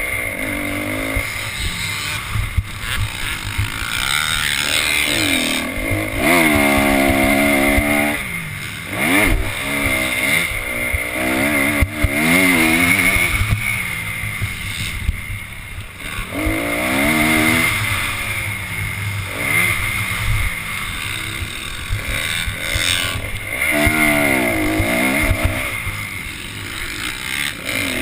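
Motocross bike's engine revving hard, its pitch climbing and dropping back again and again as the rider accelerates and backs off around the dirt track.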